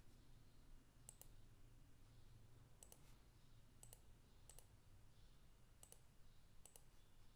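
Faint clicks of a computer mouse button: six quick press-and-release clicks spread over several seconds, over a low background hum.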